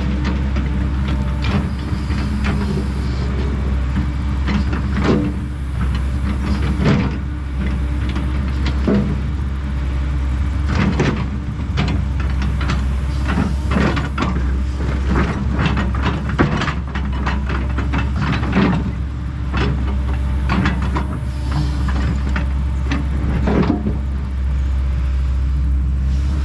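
Kobelco SK210 hydraulic excavator's diesel engine running steadily under work, with repeated sharp knocks, cracks and clunks as it handles heavy material.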